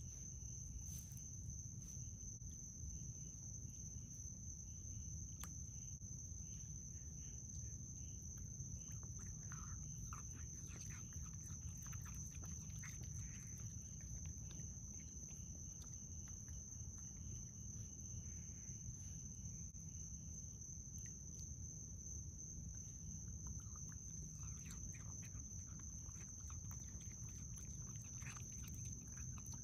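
Young raccoon eating grapes from a bowl: faint, scattered wet chewing and lapping clicks, coming in clusters, over a steady high-pitched background tone.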